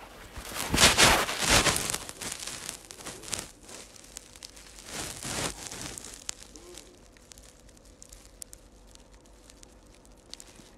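Rustling and crackling handling noise close to a phone's microphone, loudest in a burst about a second in, then smaller rustles and a few faint clicks.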